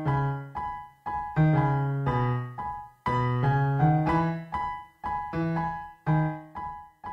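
Background music: a piano-like keyboard playing short chords and notes that die away quickly, one after another in an even rhythm.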